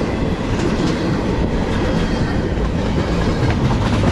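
Empty double-stack intermodal well cars of a freight train rolling past close by: a steady, loud rumble of steel wheels on rail, with scattered clicks from the wheels.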